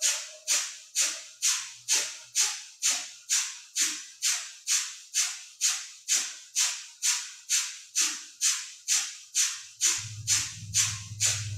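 Kapalabhati (breath of fire) breathing: quick, forceful exhales through the nose in a steady rhythm of about two a second, each a sharp puff of air. A low steady hum comes in near the end.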